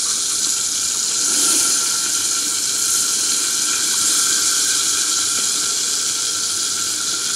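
Pack rat frying in hot grease in a glass-lidded skillet: a steady sizzle.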